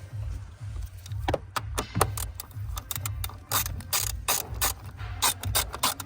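Ratchet wrench clicking while a 10 mm fastener holding the accelerator pedal is done up: a quick, uneven run of sharp clicks starting about a second in.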